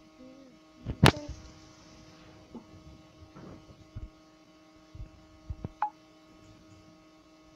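A few scattered taps and clicks of fingers on a phone's touchscreen, the sharpest about a second in, over a steady electrical hum.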